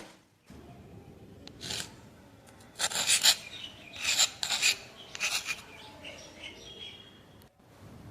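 A hand tool worked against wood in a run of short strokes, several in quick succession from about a second and a half in until about five and a half seconds in.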